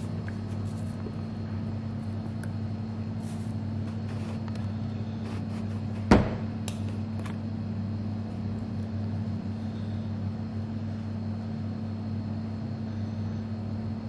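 Steady low hum, with one sharp knock about six seconds in and a few faint clicks.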